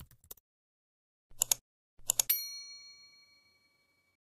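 Sound effects for an animated subscribe button. The last faint keyboard-typing clicks die away, two quick clicks follow about a second in and two seconds in, and then a single bright bell ding rings out and fades over about a second and a half.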